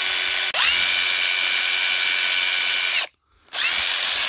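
Hilti SID 4-A22 cordless impact driver running free under the trigger, a steady high whine that spins up quickly at each start. It dips briefly about half a second in, runs on until about three seconds, stops, and starts again near the end. With its switch and motor just cleaned with contact cleaner, it runs smoothly.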